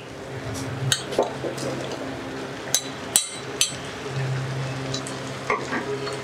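Sliced hog plums tipped into hot spiced mustard-oil paste in a nonstick frying pan, with a few sharp clinks of the bowl and spoon against the pan over the steady sizzle of the frying.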